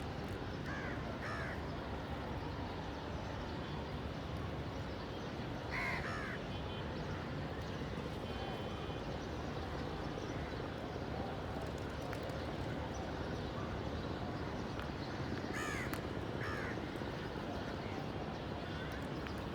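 Crows cawing in short groups of calls, twice near the start, once about six seconds in, in a quick cluster around sixteen seconds and once near the end, over a steady background hiss.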